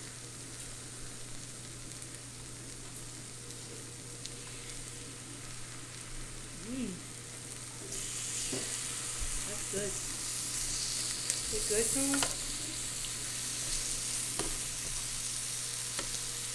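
Meat sizzling on an electric grill plate, a steady frying hiss that grows louder about eight seconds in, with a few faint clicks.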